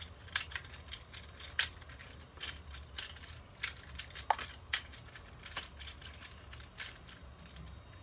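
Plastic infinity cube fidget toy being folded and flipped in the hands, its hinged blocks clacking together in a quick, irregular run of sharp clicks.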